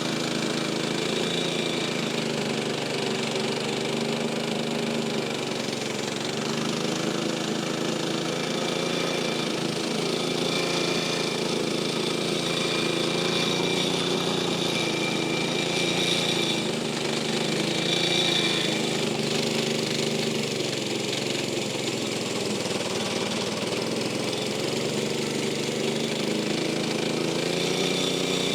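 Tractor diesel engine running steadily, its speed rising and falling a little as the machine is worked.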